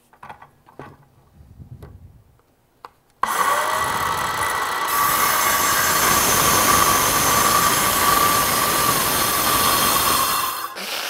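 A few light knocks, then about three seconds in a circular saw starts abruptly and cuts through a sheet of MDF: a loud, steady high whine of the blade lasting about seven seconds, dying away near the end.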